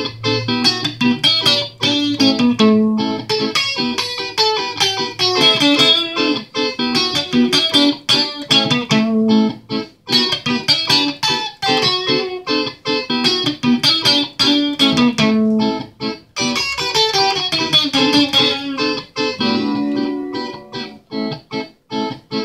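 Electric guitar improvising over E minor 7 through a TC Electronic Corona Chorus, a Flashback delay and an acoustic-simulator pedal: many quickly plucked single notes that ring on into one another.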